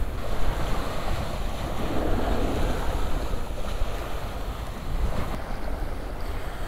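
Wind buffeting the microphone over the steady wash of the sea against the pier below.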